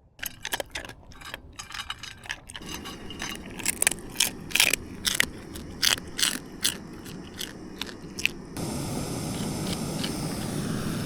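Crinkling and crackling of a foil dehydrated-meal pouch being opened and handled. About eight seconds in, a steady rushing starts as hot water is poured into the pouch to rehydrate the food.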